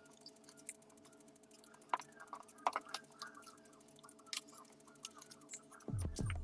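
Paper being folded and creased: scattered soft clicks and crinkles over faint steady background music. Near the end, louder music comes in with deep, falling bass notes.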